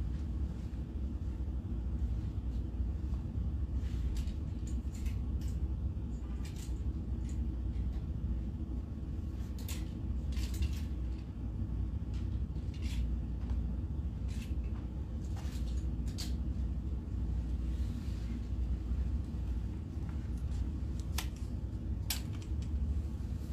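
Clothes hangers clicking and scraping along metal garment racks as clothes are sorted through, in short scattered clicks, over a steady low hum.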